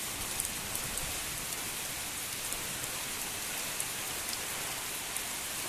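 Heavy rain pouring down in a steady hiss, with scattered sharp ticks of drops striking nearby surfaces.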